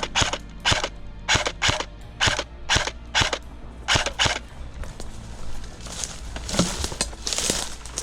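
Airsoft rifle firing single shots, about ten sharp snaps in the first four and a half seconds, some in quick pairs. A few seconds of rustling noise follow.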